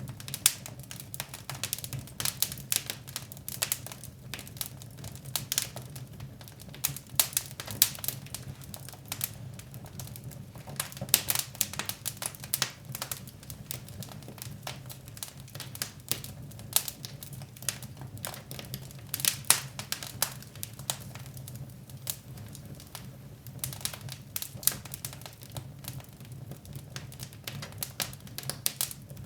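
Wood fire in a fireplace crackling, with irregular sharp pops and snaps, some much louder than others, over a steady low hum.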